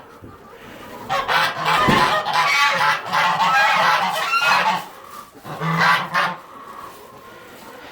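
Domestic fowl calling in a string of harsh, repeated calls for about five seconds, then a short further burst near six seconds.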